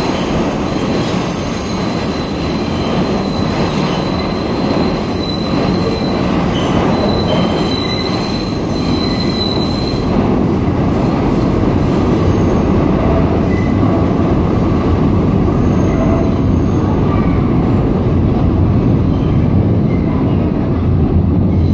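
R62A subway train's steel wheels squealing as it pulls around a tight loop curve, a high-pitched squeal over a heavy rumble. About ten seconds in the squeal fades and a steady low rumble carries on as the train goes into the tunnel.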